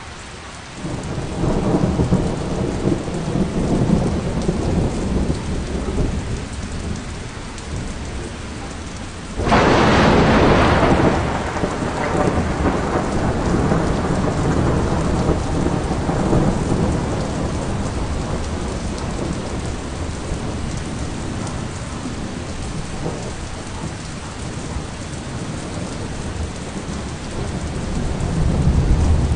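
Thunderstorm: steady heavy rain with rolling thunder. About nine and a half seconds in, a sudden sharp thunderclap cracks and rumbles away over a few seconds, and the rumbling builds again near the end.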